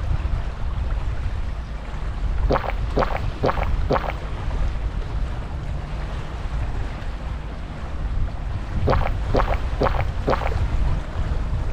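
Wind rumbling on the microphone over shallow sea water. Twice, about two and a half seconds in and again about nine seconds in, comes a run of four short sharp chirps about half a second apart.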